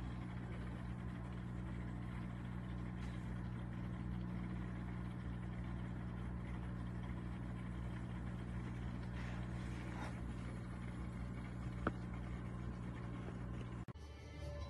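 A machine's steady low hum with a stack of evenly spaced tones, like a motor or engine running, unchanging throughout. A single small click about twelve seconds in.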